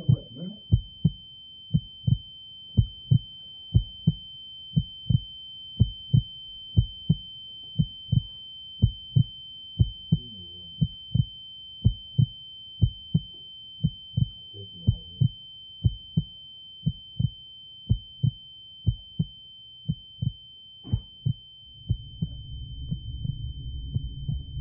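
Sound-design heartbeat thumping steadily, about two thumps a second, under a steady high-pitched ringing tone. A low rumbling drone comes in near the end.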